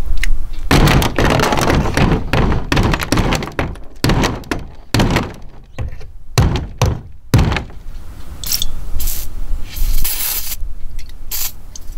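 Small sledge hammer tapping molly-bolt anchors into holes in a plastic kayak deck: a quick run of knocking blows for several seconds that then stops.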